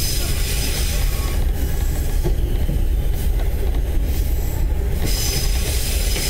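Running noise heard aboard a KiHa 30/KiHa 37 diesel railcar pair under way: a steady low rumble of engine and wheels on rail, with a hiss in the upper range that swells and fades.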